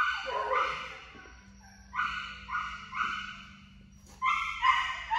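A dog giving a run of short, high-pitched yips, bunched in twos and threes, about eight in all.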